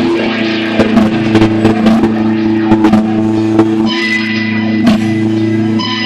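Electric guitar played through an amplifier: quick picked notes over a held low chord, then from about four seconds in a note left ringing with few new attacks.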